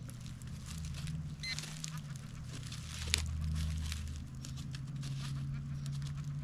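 A metal detector gives one short high-pitched beep about one and a half seconds in, over a low steady hum and scattered faint scrapes and ticks.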